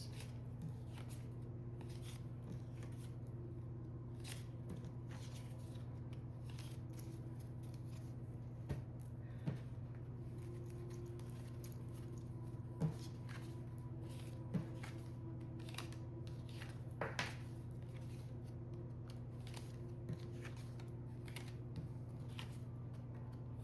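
Tarot cards being gathered up and shuffled by hand: scattered soft clicks and flicks, a few sharper ones in the middle, over a steady low hum.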